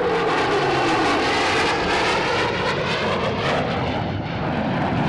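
A Boeing F/A-18 Hornet's twin General Electric F404 turbofans roar loudly as the jet makes a pass, with a tone that drops in pitch during the first second.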